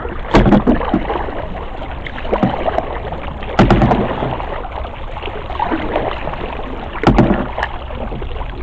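Canoe paddling: three sharp paddle strokes, about every three and a half seconds, against a steady rushing background.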